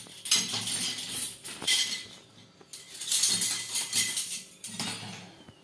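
A metal spoon clinking and scraping against a glass jar of garlic-infused oil, in two bouts of a couple of seconds each, with a brief glassy ring about a second and a half in.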